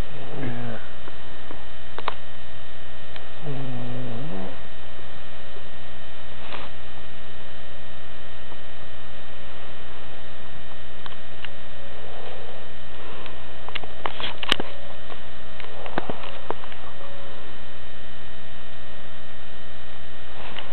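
A woman snoring hard in her sleep: a few drawn-out pitched snores several seconds apart, over a steady electrical hum.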